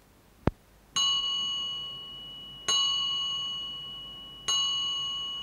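A sharp click, then a bell-like chime struck three times at the same pitch, about every second and three quarters, each stroke ringing out and fading.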